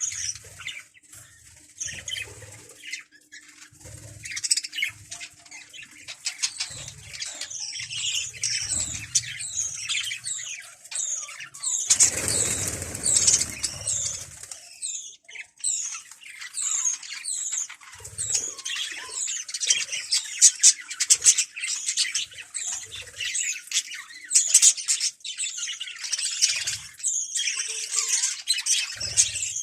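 Many small birds chirping densely and continuously, with soft wing flutters throughout. A louder rush of flapping comes about twelve seconds in and lasts two seconds or so.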